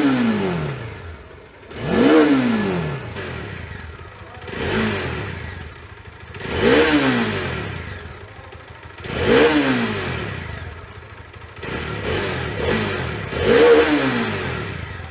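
Bajaj Dominar 400's 373 cc single-cylinder engine with its stock exhaust, revved in neutral. Five or six quick throttle blips, a few seconds apart, each climbing in pitch and dropping back to idle.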